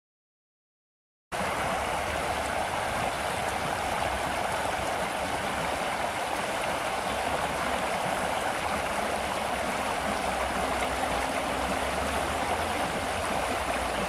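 Shallow river running over rocks in small rapids: a steady rushing of water that starts abruptly after about a second of silence.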